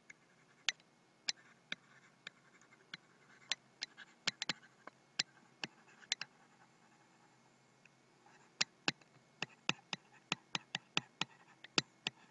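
Faint, irregular clicks and taps of a stylus on a pen tablet as words are handwritten, with a pause of about two seconds midway.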